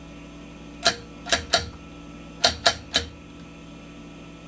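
Rotary channel selector of a vintage Admiral television being turned, clicking through its detents: six sharp clicks in three quick groups, over a steady low electrical hum.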